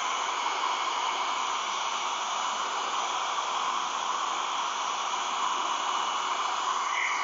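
Handheld hair dryer running steadily: a constant rush of air with a faint steady high whine.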